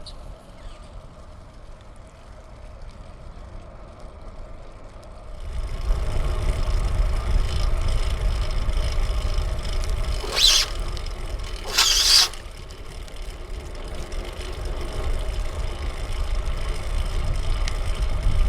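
Riding noise from a fixed-gear bicycle being ridden: a steady low rumble comes in about five seconds in. Two short, sharper higher-pitched sounds follow around the middle.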